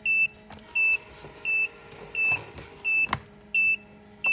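Electronic alarm beeping steadily, short high beeps about one every 0.7 seconds, with a light knock about three seconds in.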